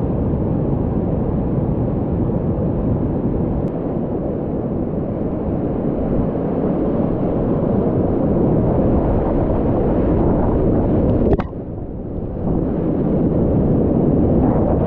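Loud, steady rushing of whitewater rapids, picked up close by a small camera on a kayak's bow, so the noise is full and wind-like. About three-quarters of the way through there is a sharp click and the noise drops briefly before building again.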